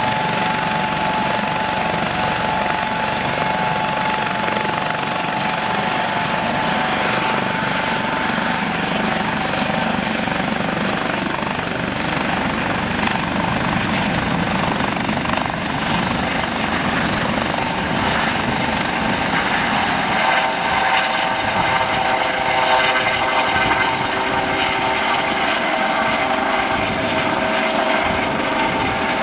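Eurocopter AS 365 Dauphin helicopter running on the pad with rotors turning: a steady rush from its twin turboshaft engines and rotors, with a high turbine whine. About two-thirds of the way through the sound grows fuller and a little louder as power comes up and the helicopter lifts off.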